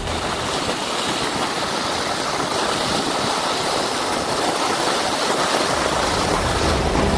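Skis sliding at speed over groomed snow: a steady rushing hiss.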